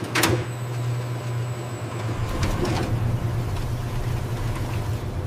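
Laboratory machine running with a steady low hum, with one short, sharp sound just after the start and a few faint taps around the middle.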